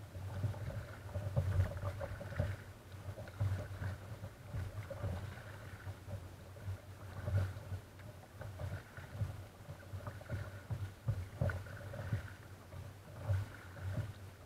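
Water lapping and slapping against a plastic kayak's hull while it drifts on calm sea, picked up through the hull by a camera mounted on the kayak: an uneven run of low knocks and small splashes.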